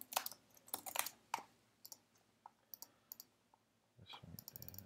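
Computer keyboard keys and mouse clicks: a quick run of clicks in the first second and a half, then a few scattered clicks.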